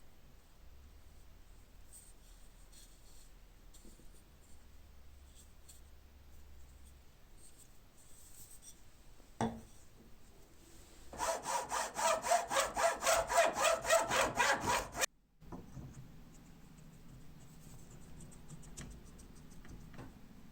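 Hand saw cutting a wooden handle blank. Faint scraping and a single knock come first, then about four seconds of fast sawing strokes, roughly five a second, which stop abruptly.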